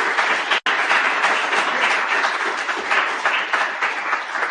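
Audience applauding, a dense steady patter of many hands clapping, with a momentary dropout a little under a second in.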